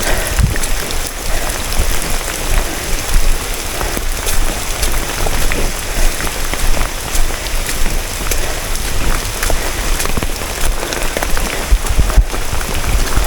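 Steady rain, with many small drop hits close to the microphone and a low rumble underneath.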